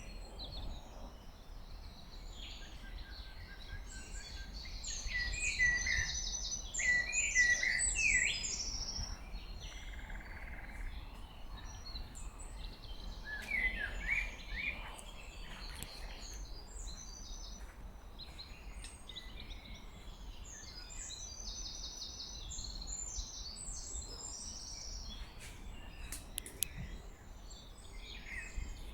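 Several songbirds singing and calling over one another, busiest a few seconds in and again near the end, over a faint low rumble.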